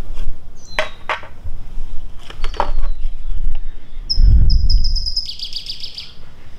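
Plastic pool skimmer lids clicking and knocking as the old lid is lifted off and the WaterGuru Sense lid is handled over the skimmer opening, with a low bump of handling about four seconds in. A bird sings a quick trill of high chirps from about four seconds in to near the end.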